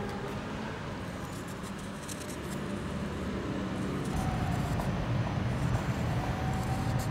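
Background traffic noise, a steady low rumble that cuts abruptly to a louder rumble about four seconds in.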